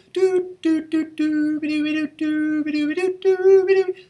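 A single man's voice singing a melody line unaccompanied, in short phrases of held notes that step between two pitches.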